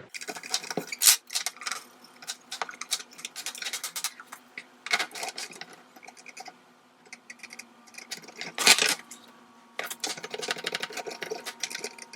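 Scrubbing and wiping a degreaser-sprayed kitchen cabinet shelf by hand: a steady run of quick scraping strokes and small knocks, with a few louder rasping strokes.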